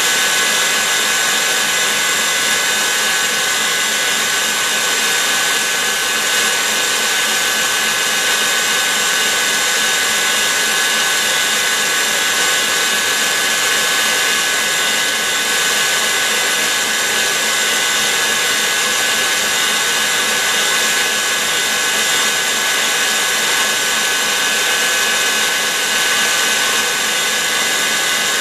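KitchenAid Heavy Duty stand mixer running steadily, its wire whisk beating egg whites into meringue in a stainless steel bowl. It makes an even whir with a steady motor whine and holds the same speed throughout.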